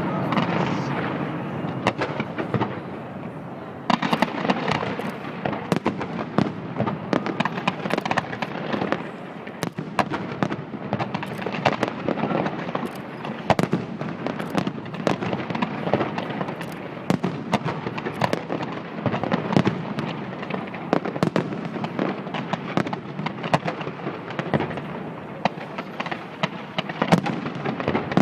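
Fireworks display: a dense, continuous barrage of shells bursting, with rapid crackles and bangs several times a second over a steady rumble.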